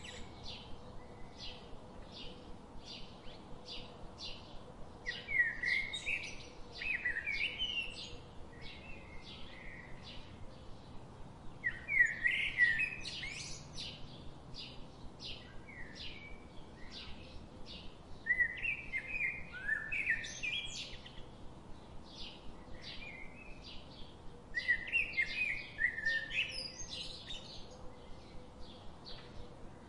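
Birds chirping: a steady run of short chirps about twice a second, with a burst of warbling song roughly every six seconds.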